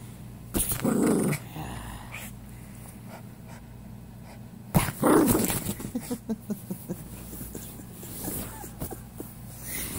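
Small dog growling with a plush toy gripped in its mouth, in two short bouts, about a second in and about five seconds in.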